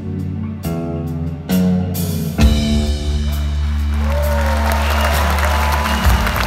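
Live rock band ending a song: a few lone electric guitar notes, then the whole band hits a final held chord with bass and cymbal wash, which cuts off about six seconds in. Audience applause swells under the chord from about four seconds in.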